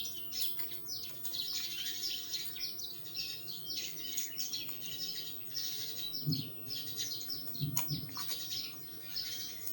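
Birds chirping busily and continuously, many short high chirps overlapping, with one sharp click near the end.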